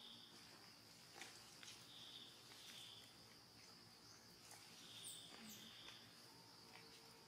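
Faint forest ambience: a steady high insect drone, with short buzzy chirps every second or two and a few soft clicks.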